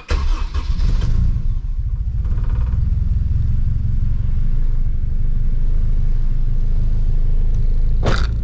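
K-swapped Honda Civic's K-series engine starting up, noisy for the first second, then running at a steady, loud idle. A short sharp noise sounds about eight seconds in.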